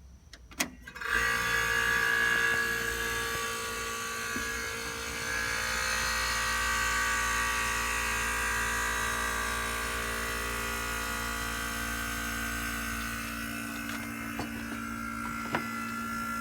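Philco Noiseless window air conditioner's compressor starting about a second in and running steadily with a low hum and a steady whine, building up pressure: it runs normally, a sign the compressor is sound. The low hum fades near the end while the whine carries on.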